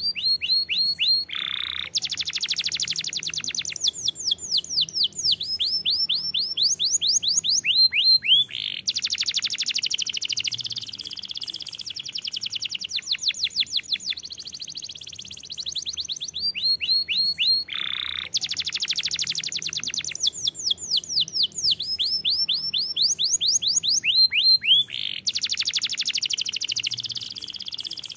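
Domestic canary singing a long continuous song of rapid trills, each a quick run of repeated sweeping notes, with a lower rolling phrase in between. The same sequence of phrases comes round again about halfway through.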